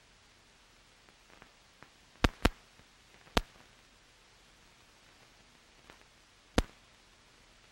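Steady faint hiss broken by a few sharp isolated clicks: a close pair a little over two seconds in, another about a second later, and one more about six and a half seconds in. This is the surface noise of an old film print's soundtrack with no speech on it, its crackles from dust or damage on the track.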